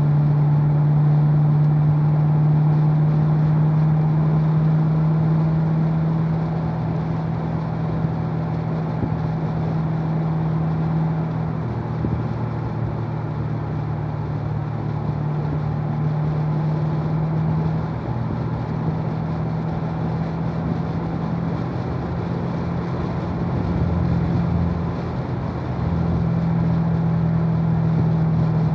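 2016 Corvette Stingray Z51's 6.2-litre LT1 V8 cruising in fourth gear at about 2,000 rpm: a steady low engine drone that shifts slightly and dips briefly a few times as the throttle eases and comes back on.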